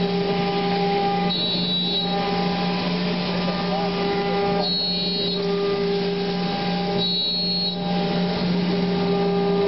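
C.R. Onsrud Panel Pro CNC router running: a steady machine hum made of several fixed tones, with a higher whine that comes in briefly three times, a few seconds apart.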